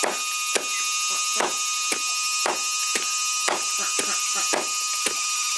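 A steady high-pitched whine with sharp ticks about twice a second.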